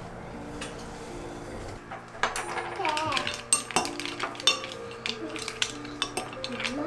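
A metal spoon clinking and scraping against mussel shells and a ceramic bowl, a rapid irregular run of clicks starting about two seconds in. Soft background music with held notes runs underneath.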